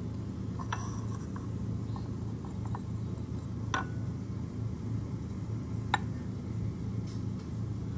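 Steady low room hum with a few light clicks, about a second, nearly four and six seconds in, as a finger touches a glass beaker.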